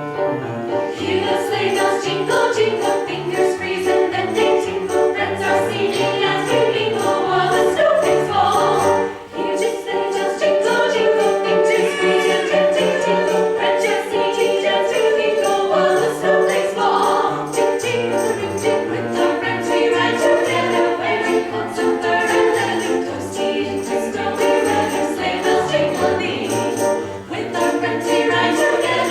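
Choir singing a Ukrainian folk tune, with sleigh bells jingling in a steady rhythm throughout.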